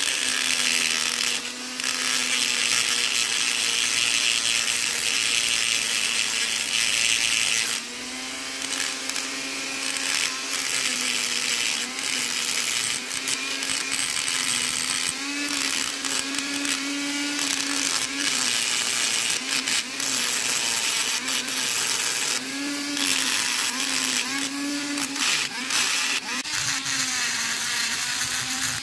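Flex-shaft rotary tool spinning an abrasive point against the steel of old pliers: a steady motor whine with a grinding hiss. The pitch dips and rises again several times as the point bites into the metal and eases off.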